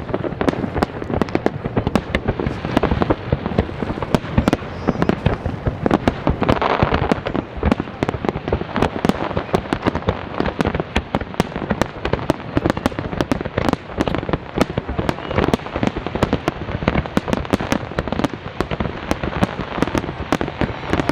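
Large fireworks display going off without pause: rapid, overlapping bangs and crackling from many shells bursting at once, with a louder swell about six to seven seconds in.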